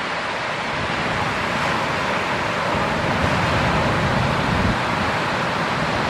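Steady roar of big ocean surf breaking, with a deep rumble that swells a couple of seconds in as a wave comes through.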